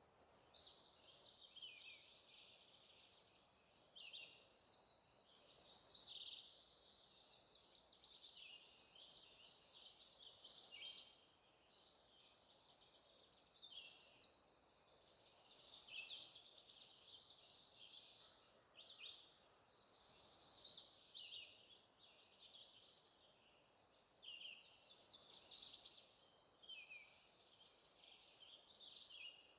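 Songbirds singing: short, high song phrases of rapid notes, repeating every few seconds, sometimes overlapping.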